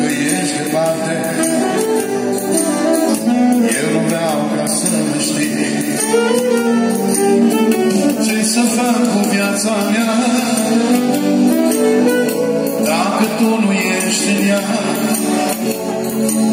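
Live band music: an instrumental passage of a slow Romanian dance song, a held, gently bending melody line over a steady beat.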